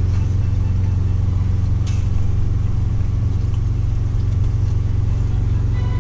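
A semi-truck's diesel engine idling, heard from inside the cab as a steady low rumble. A brief faint click comes about two seconds in.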